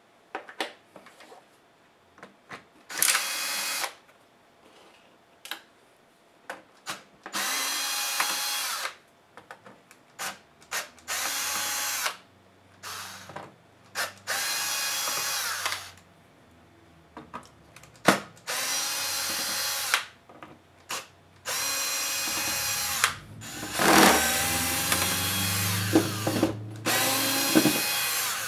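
Cordless electric screwdriver backing screws out of a laptop's plastic bottom case, its motor whining in about seven short runs of one to two seconds, the last one longer, with small clicks and taps of screws and handling in the gaps.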